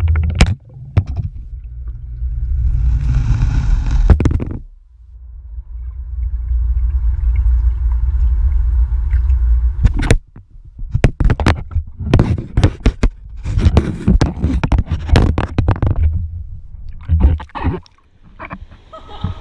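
Swimming pool heard underwater through a submerged GoPro: a muffled, deep rumble of water moving around the camera, with a faint steady hum in a calmer stretch. From about ten seconds in come many sharp splashing and bubbling crackles as a swimmer thrashes nearby, and near the end the camera comes up into open air.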